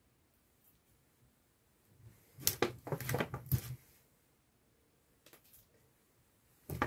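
Kitchen scissors snipping a garnish, a quick run of sharp clicks with handling knocks about two to four seconds in, then a couple of faint clicks near the end.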